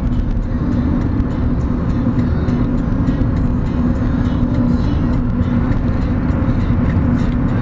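Car interior while driving: steady road and engine noise with a constant low hum.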